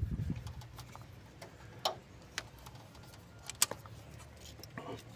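A few faint, separate clicks and taps of a spark plug wire being handled, its rubber boot pushed onto a terminal of the distributor cap, the loudest about three and a half seconds in.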